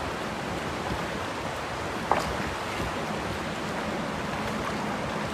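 Steady rushing of shallow river water, with one short click about two seconds in.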